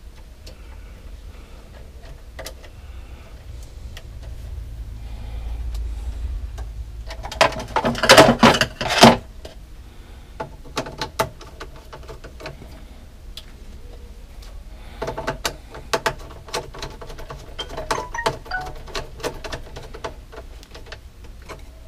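Hands and a screwdriver working a white neutral wire into the neutral bar of a metal breaker panel, making scattered clicks and rattles. About eight seconds in comes a loud run of rattling clicks, and there is another cluster of clicks later on.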